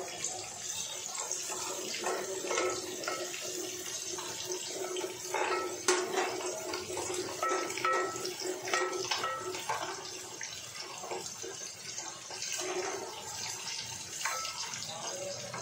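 Oil sizzling as a spice-and-onion base fries in a metal pot, with a wooden spatula scraping and knocking against the pot as it is stirred.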